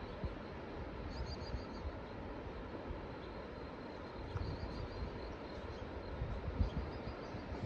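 Steady rush of ocean surf, with wind gusting on the microphone and faint high chirps over it.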